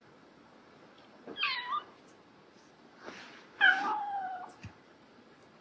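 Young kitten meowing twice: a short meow, then a longer one that falls slightly in pitch.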